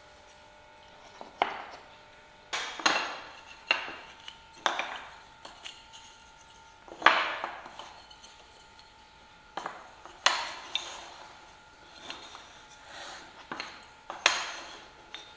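Short mitered pine strips being set down and knocked together on a workbench: about fourteen sharp wooden clacks at irregular intervals, each dying away quickly, the loudest about halfway through.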